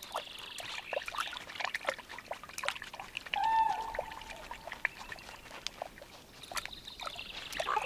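Wolf splashing through shallow bog water and lapping from a pool, with many short wet clicks and drips. A short call sounds about three and a half seconds in.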